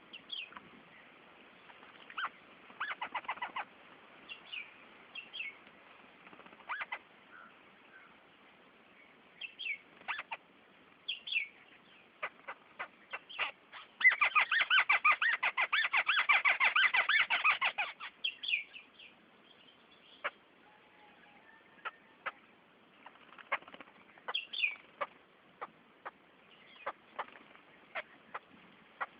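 Small birds bathing: short chirps and scattered splashes, and about halfway through a four-second burst of rapid wing-fluttering as a bird beats its wings in the water, the loudest sound.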